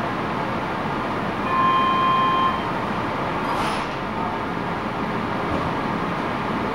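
Vienna U-Bahn Type V metro train standing at a platform with a steady hum. About a second and a half in, a single one-second electronic beep sounds, the door-closing warning before departure. About two seconds later comes a brief hiss.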